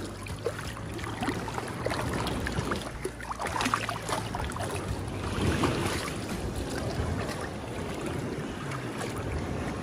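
Shallow seawater sloshing and splashing as sea turtles move in the surf, over a steady low rumble.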